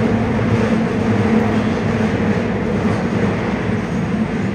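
Running noise inside a Seoul Subway Line 6 train with Mitsubishi IGBT-VVVF traction equipment: a steady rumble of wheels on track with a low steady hum, easing slightly near the end.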